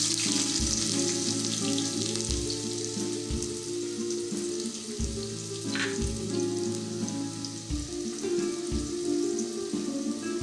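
Chopped onion sizzling in hot oil with mustard seeds and garlic in an aluminium pot, the hiss strongest just as the onion goes in and then settling to a steady fry as it starts to brown. Soft background music with a slow beat plays underneath.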